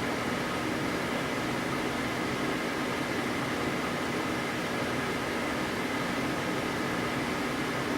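Steady hiss and static from a weather radio receiver, with no voice or tones in it.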